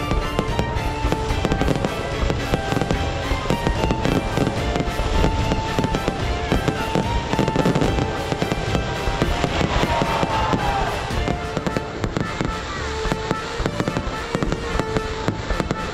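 Fireworks going off in a dense, continuous barrage of rapid crackling and banging, with music playing over it.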